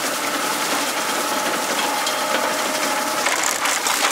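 Vintage grain binder (reaper-binder) running as it cuts wheat: a steady, dense mechanical clatter of its gears and knotter mechanism.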